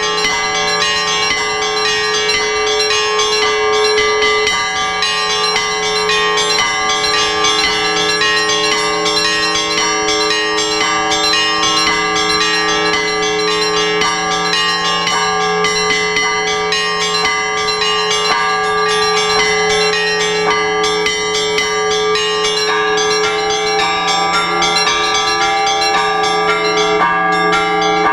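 Orthodox church bells rung by hand for the all-night vigil: several bells of different pitches sound together in a continuous peal. Quick repeated strikes on the smaller bells ring over deeper bells that keep sounding underneath.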